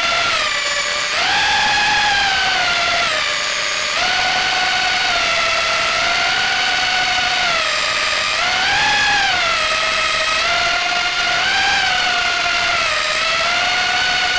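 Brushless motors and propellers of an Armattan Gecko 3-inch FPV quadcopter whining in flight. The pitch rises and falls several times as the throttle changes, with a sharp rise about a second in and another about eight seconds in.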